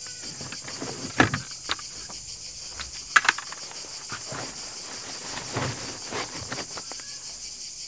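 Folded Robens Observer camping chairs in fabric carry bags being pushed into a fabric pocket on a camper van's tailgate: a few sharp knocks of the chair frames and rustling of fabric. Under it runs a steady high shrilling of cicadas.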